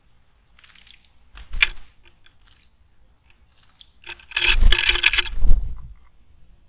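Small bird, a Japanese tit, splashing and fluttering in a stone water basin as it bathes: a short splash about a second and a half in, then a longer, louder bout of splashing near the middle.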